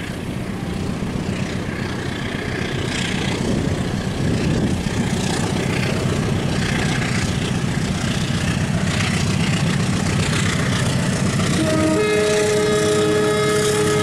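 An Indonesian Railways diesel-electric locomotive hauling a passenger train approaches, its low engine and rolling rumble growing steadily louder. Near the end it sounds a long, steady multi-tone horn chord, the Semboyan 35 warning signal.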